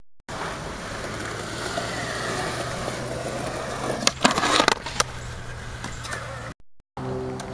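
Skateboard wheels rolling on concrete, then about four seconds in a trick at a concrete ledge: several sharp clacks of the board popping and landing within about a second, before it rolls on. The sound cuts out briefly near the end.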